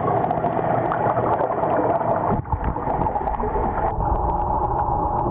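Steady muffled underwater rushing and bubbling from the exhaled air bubbles of a surface-supplied hookah breathing regulator, with a brief dip about two and a half seconds in.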